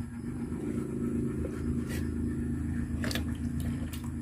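A steady low mechanical hum with a few faint clicks near the middle and end.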